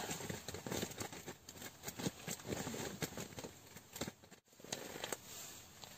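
Faint, irregular clicking and rustling, with a brief dead gap a little past the middle.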